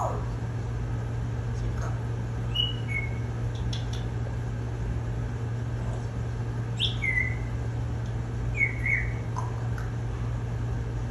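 African grey parrot giving three short whistles a few seconds apart, each dropping in pitch, over a steady low hum.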